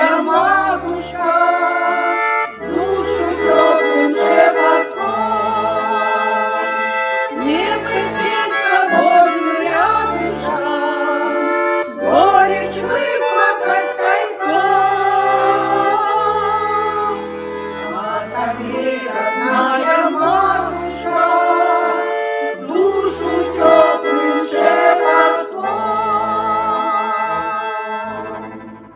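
Accordion playing a folk song with a pulsing bass accompaniment, with a folk vocal group singing over it, then the music fades out near the end.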